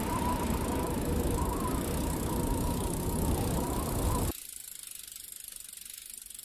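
Steady, low outdoor ambient noise with a faint wavering high tone over it, cutting off abruptly about four seconds in and leaving only a faint hiss.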